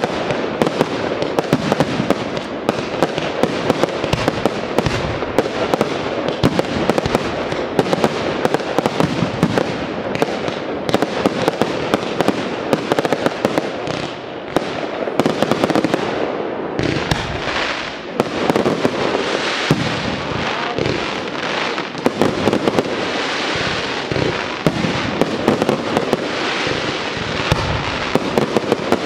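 Fireworks display: a continuous barrage of shells bursting, with dense rapid bangs and crackling. It eases briefly about halfway through, then picks up again.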